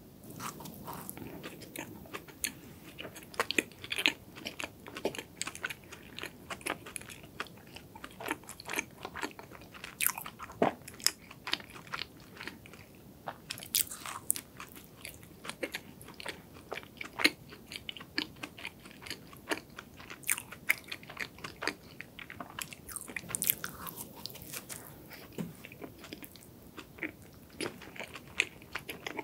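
Close-miked biting and chewing of a crème brûlée doughnut's chewy, moist dough, with irregular sharp crackles and wet mouth clicks.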